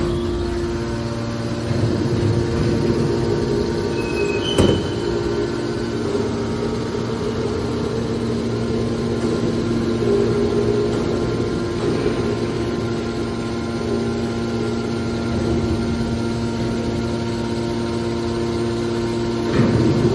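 Hydraulic scrap aluminum can baler running, its motor and pump giving a steady hum. There is a sharp knock about four and a half seconds in and another near the end.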